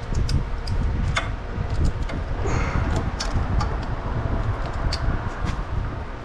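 Hands and tools working a hose loose in a car's engine bay: scattered clicks and scrapes over a steady low rumble, with a short hiss about two and a half seconds in.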